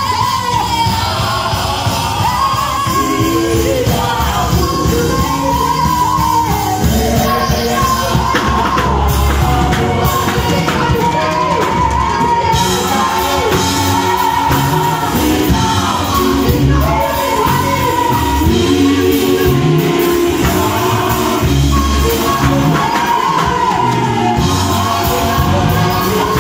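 Live stage performance of a song: singing over instrumental backing with a steady beat, loud and continuous.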